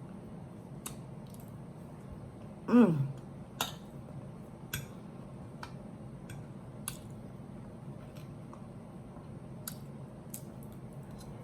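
Quiet eating at a plate: cutlery clicking against the dish now and then, with chewing. About three seconds in comes one short hum of the voice that falls steeply in pitch, the loudest sound.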